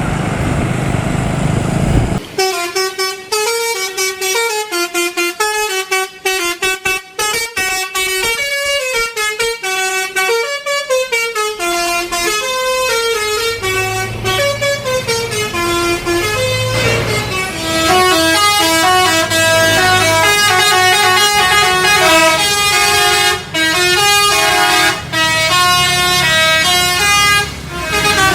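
A bus's telolet basuri horn playing a melody: a quick run of stepping horn notes starting about two seconds in, after a brief rumble, and growing louder in the second half.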